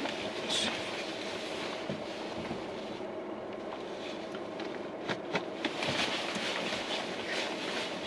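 Mazda 3 reversing slowly: steady engine and road noise, with a few light clicks about five seconds in.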